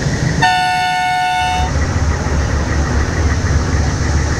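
A vehicle horn sounds once, a steady two-tone blast lasting just over a second, then a low vehicle rumble runs on.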